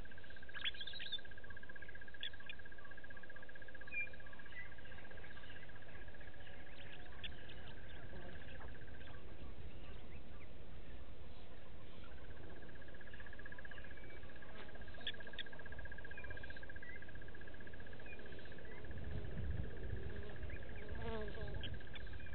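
Outdoor bush ambience dominated by a steady, evenly pulsed high insect trill that stops for about two seconds midway and then resumes, with scattered short chirps over it and a low rumble near the end.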